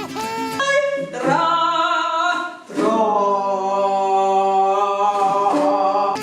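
A voice singing two long held notes, the second one about three seconds long.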